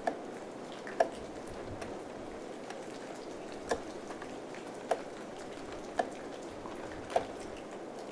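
Combination lever of a STIHL chainsaw clicking as a gloved hand moves it between its positions: six sharp clicks spaced one to three seconds apart, over a steady background hiss.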